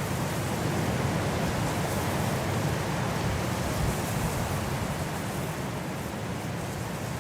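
Steady wind blowing, a full low rush with a hiss above it, easing a little after about five seconds.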